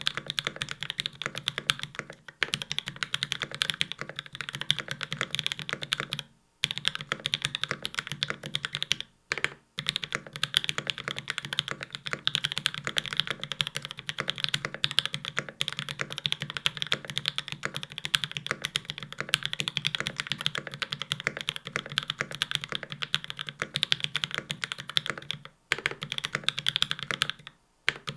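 Fast, continuous typing on a Space65 CV mechanical keyboard, a dense run of keystroke clacks broken by a few brief pauses.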